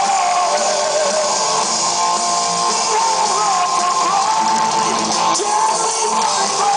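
Power metal band playing live: distorted electric guitars, bass and drums, loud and dense, with a held, bending melody line on top.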